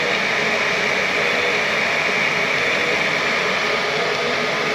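Steady, unchanging whir of running machinery or ventilation in a workshop. It is a loud, even rush with no rhythm.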